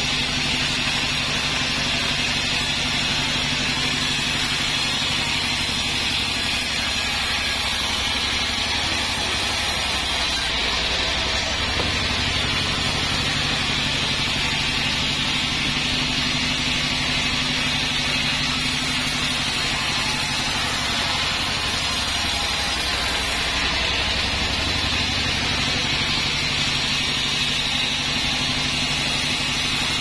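Large band sawmill running steadily: its drive hums with a constant low drone while the band blade hisses as it cuts through a wadang log.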